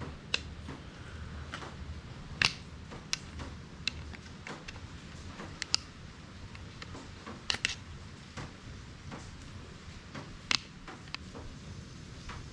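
Irregular sharp clicks and taps of plastic and metal as a fuel tank sender assembly is handled and worked at with a screwdriver, about a dozen in all, the loudest about two and a half seconds in and again near ten and a half seconds, over a low steady hum.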